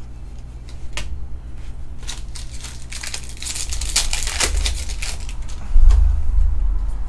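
Plastic wrapper of a Bowman baseball card pack being torn open and crinkled by hand, a dense crackling that is thickest about three to four seconds in. A few light clicks of cards being handled come before it, and a low thump comes near the end.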